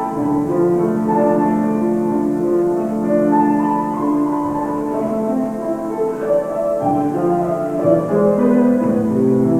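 Slow instrumental music with long held chords and a melody moving above them, without singing.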